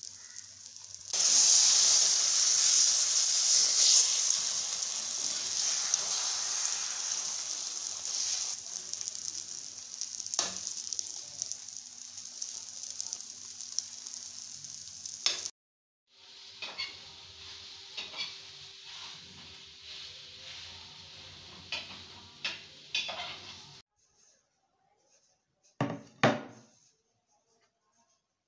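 Egg omelette frying in a steel pan: loud sizzling starts about a second in and slowly eases off. After a break, quieter sizzling with scattered clicks of the pan and utensil. Near the end, near silence and two short knocks as a bowl is set down on a table.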